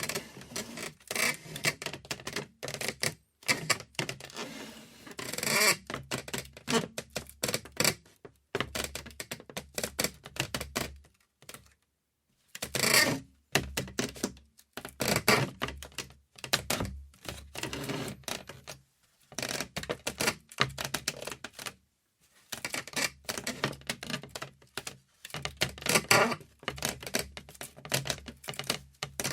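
Wood creaking: runs of rapid clicking ticks that come and go in strains, with brief pauses between them.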